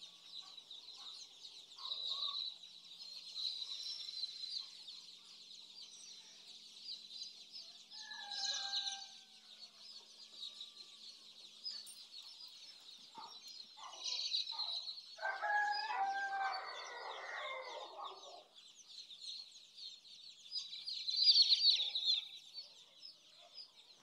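A dense, continuous chorus of many chicks peeping at a high pitch. A few lower calls rise above it, the longest and loudest lasting a couple of seconds just past the middle.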